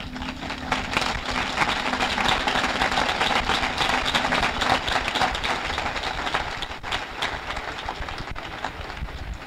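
Concert audience applauding between songs, a dense patter of many hands that swells about a second in and eases off near the end. A steady low tone runs under it through the first half.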